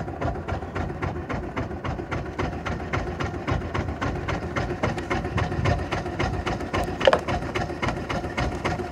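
Small fishing boat's engine idling with an even rapid knock of about five beats a second, the boat holding still while a hooked fish is played alongside. A short higher-pitched sound cuts in about seven seconds in.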